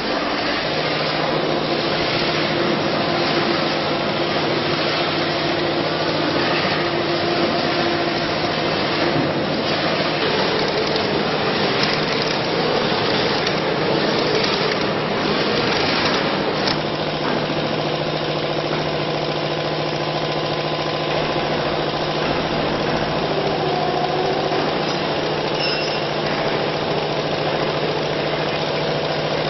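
Steady running noise of concrete-pole factory machinery, a dense mechanical din with a constant hum under it.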